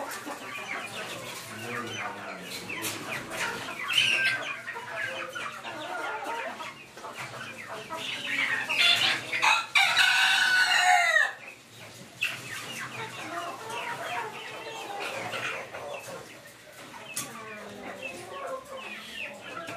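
Caged Ayam Cemani chickens clucking and calling. A rooster crows loudly for about three seconds around the middle.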